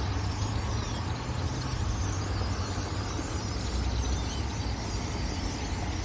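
Massed chattering of a large flock of birds perched on power lines, many overlapping short calls, over a steady low rumble.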